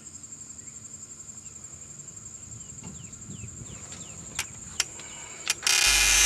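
Insects trilling steadily in one high, finely pulsing tone, with a few faint clicks and short chirps. Near the end a loud hiss cuts in for about a second.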